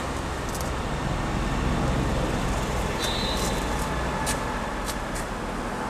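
Steady low rumble of motor-vehicle noise with a few faint clicks.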